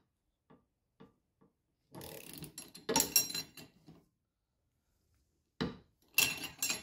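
Metal hand tools working loose a car's front strut top nut: a few light clicks, then about two seconds of clattering and scraping with sharp hits, and a louder cluster of clinks near the end.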